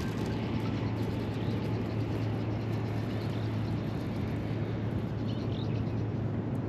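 Steady low hum over an even rushing background, with a few faint high chirps about five seconds in.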